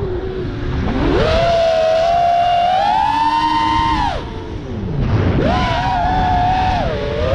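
FPV quadcopter's brushless motors whining, the pitch following the throttle. It climbs about a second in and creeps higher, drops sharply around four seconds, then climbs again shortly after five seconds. Rushing wind and prop-wash noise underneath.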